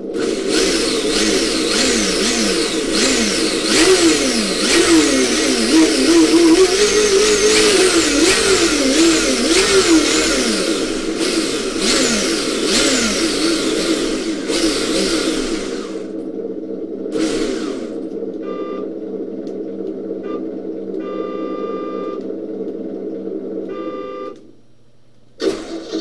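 An engine sound module on a Kyosho Inferno GT3 brushless RC car plays simulated engine revs through its speaker. For about the first ten seconds the pitch rises and falls again and again, with a higher whine following each rev. The sound then settles into a steady idle hum with short beeps, drops out briefly near the end and comes back suddenly.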